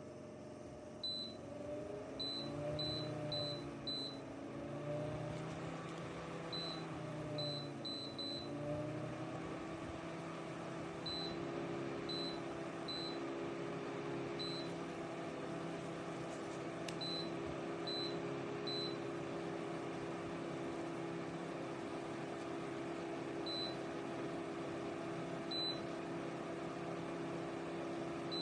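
Small portable evaporative air cooler's fan motor running with a steady hum. Its control panel gives about twenty short, high beeps at irregular intervals. The hum's pitch wavers up and down in the first several seconds as the fan speed changes, then holds steady.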